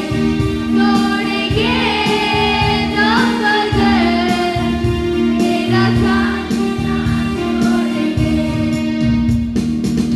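Music: a song with a singing voice over steady held notes and a low pulsing beat.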